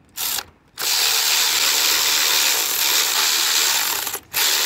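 Cordless electric ratchet driving a T30 Torx bit to back out a steering-wheel airbag bolt. A short blip, then a steady motor whir of about three seconds, a brief stop near the end, and a restart.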